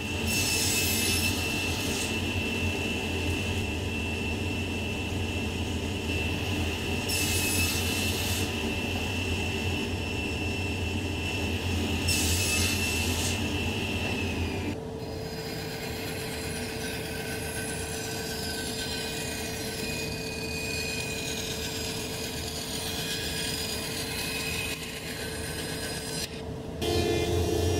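Table saw running with a steady hum and high whine, cutting through hardwood leg blanks on a crosscut sled three times: about a second in, around seven seconds and around twelve seconds, each cut louder and brighter. About fifteen seconds in this gives way to a quieter bandsaw running with a steady tone, and near the end a louder thickness planer starts up.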